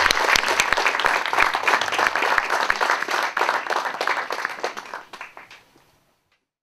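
Audience applauding: a dense patter of many hands clapping that dies away about five to six seconds in.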